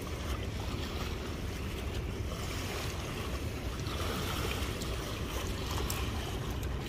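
Wind buffeting the microphone over a steady wash of sea surf, a constant low rumble with no distinct events.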